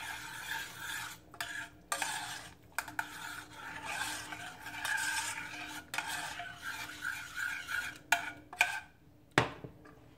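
A metal spoon stirring a boiling honey-soy glaze in a small stainless steel saucepan, scraping and clinking against the pot's sides and bottom, with one sharper knock near the end.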